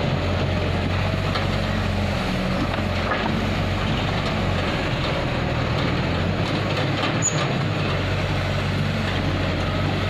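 Diesel engines of a Caterpillar 313C tracked excavator working and a Sonalika tractor idling, a steady low hum with a few faint knocks.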